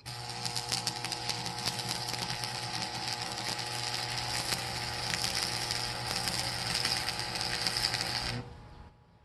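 Electric arc welding: the arc strikes suddenly and crackles steadily over a low hum for about eight seconds, then stops as one weld bead is laid.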